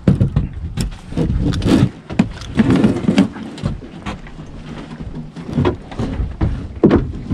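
Irregular knocks, bumps and rustling from a fish and a baited fishing rig being handled in a small plastic boat.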